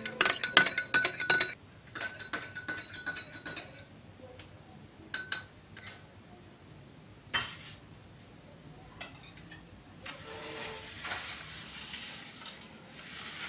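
Metal spoon stirring milk in a drinking glass, clinking fast and ringing against the glass in two runs over the first few seconds and a short run about five seconds in. A few single knocks and a soft rustling follow later.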